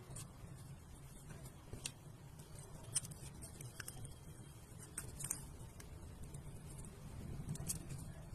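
Scattered light clicks and taps as a small box and its contents are handled during an unboxing, over a low steady hum. The sharpest click comes about three seconds in.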